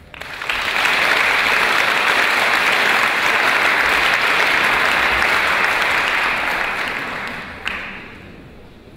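Audience applauding, swelling within the first second, holding steady, then dying away over the last couple of seconds, with a single sharp knock near the end.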